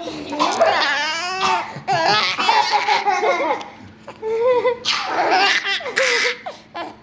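Four-month-old baby laughing hard in repeated bursts of high-pitched laughter, with short breaks for breath.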